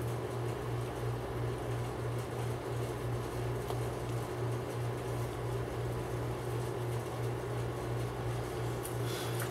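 Steady low machine hum, like a fan or air conditioner running, with a slight regular pulsing. A faint click comes about four seconds in.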